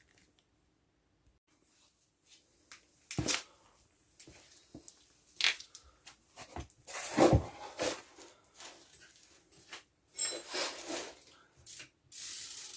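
Bicycle wheel being handled and cleaned: scattered knocks, clatter and rubbing, with a short hiss near the end.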